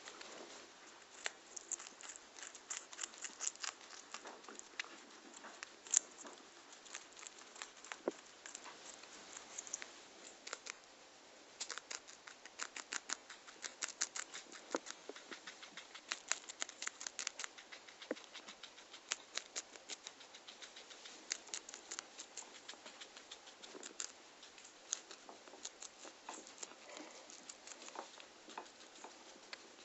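Guinea pig biting and chewing crisp yellow bell pepper held in the hand, close up: quick runs of crunching clicks with short pauses between mouthfuls.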